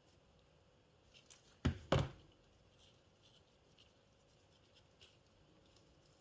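Two sharp knocks about two seconds in, a quarter second apart, then scattered faint clicks: small hard parts being handled and set down on a workbench.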